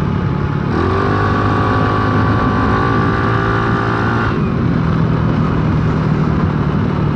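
Motorcycle engine opened up hard about a second in, its pitch rising and then holding high for about three and a half seconds before it eases back to a steady lower running note.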